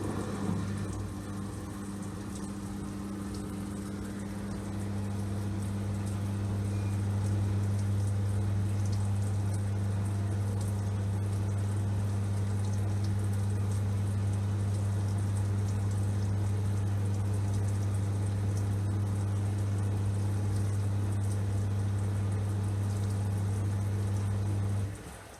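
LG washing machine's drain pump humming steadily as water runs out through it, with water noise from the drum; the hum grows louder about five seconds in.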